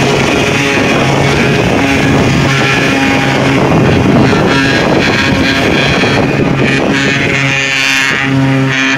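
A motor running steadily, its low hum fading in and out, under a rough rushing noise of wind on the microphone.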